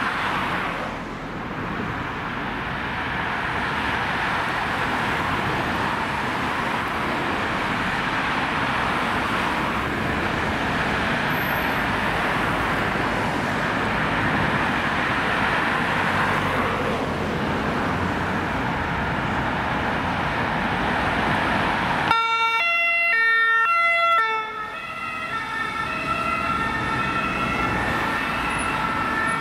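Road traffic noise from passing cars, then about 22 seconds in an ambulance's French two-tone siren starts, switching between a low and a high note about every half second, and keeps sounding over the traffic.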